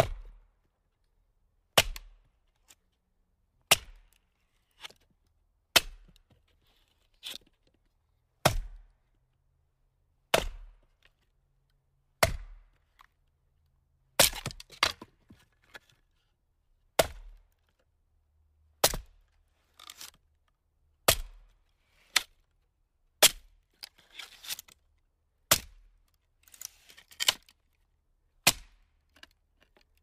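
Firewood being split: a series of sharp, loud cracking strikes, about one every two seconds, each dying away quickly. Several strikes are followed by a scatter of smaller knocks and crackles.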